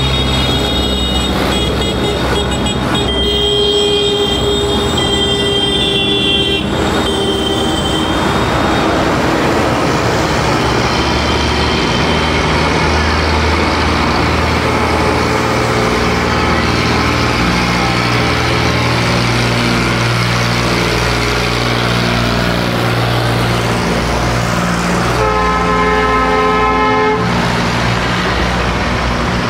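Diesel tractor engines running as a line of tractors drives past. A horn sounds twice: for several seconds starting about a second in, and for about two seconds near the end.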